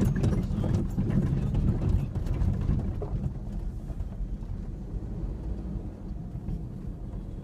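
A 2003 Ford Ranger 4x4 pickup driving off-road: a low engine and drivetrain rumble, with knocks and rattles over rough ground during the first three seconds. After that it settles to a quieter, steadier rumble.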